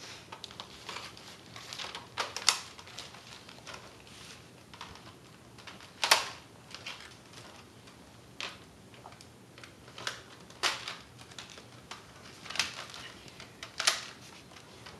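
Hard plastic clicks and snaps of attachments being fitted onto a Nerf Recon CS-6 toy blaster, with lighter handling rattles between several sharper snaps spaced a few seconds apart.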